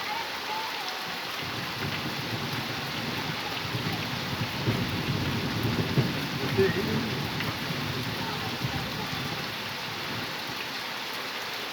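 Steady rain falling, with a low rumble building up in the middle of the clip and fading again a few seconds before the end.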